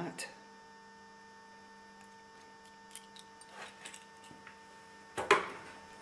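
Steady electrical hum of several even tones, with a few faint handling clicks and one sharp knock about five seconds in.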